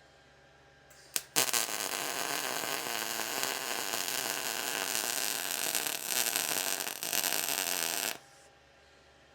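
Electric arc welding: a brief blip as the arc strikes, then about seven seconds of steady crackling from the weld bead, with a short break near the end before it stops sharply.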